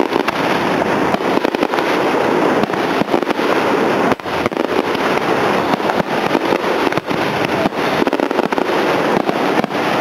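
Fireworks display: a dense, continuous barrage of aerial shell bursts and crackle, with many bangs overlapping and no pause.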